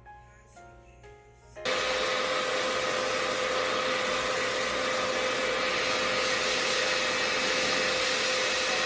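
Soft background music with single pitched notes, then a hair dryer switches on suddenly about two seconds in and runs steadily at full blast with a steady whine, drying hair edges.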